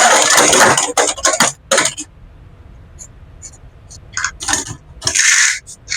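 Small hard plastic Beyblade parts clicking and clattering as they are handled: a loud rattling noise that stops about a second in, then a string of sharp separate clicks with one short rustle near the end.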